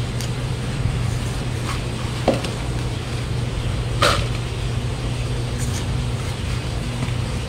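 A few scrapes and taps of a hand trowel scooping potting soil into a small pot, with one sharper tap about four seconds in, over a steady low hum.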